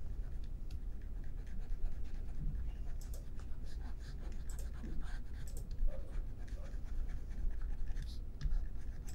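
Faint scratching and light ticks from a hand working a computer pointing device on a desk while brushing in Photoshop, over a steady low hum.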